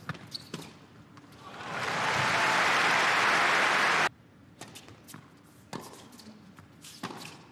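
Tennis ball struck by rackets a few times, then crowd applause swelling for about two seconds and cut off abruptly. After that, sparse racket strikes and ball bounces as the next point is played.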